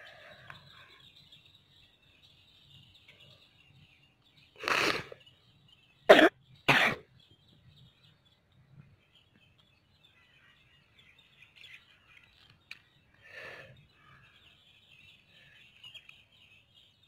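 A person coughing close to the microphone: one cough about five seconds in, two loud coughs in quick succession a second later, and a fainter one near the end. Birds chirp faintly in the background throughout.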